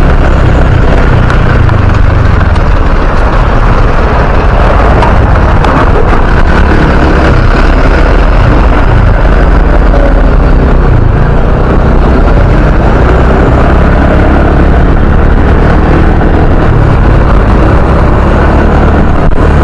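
Loud, steady rush of wind buffeting the microphone on a moving motor scooter, with the scooter's engine and the surrounding traffic running underneath.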